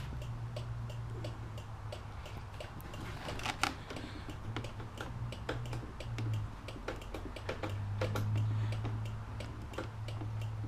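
Small motorcycle engine idling: a low steady hum that swells a little about eight seconds in, under rapid, uneven light ticking.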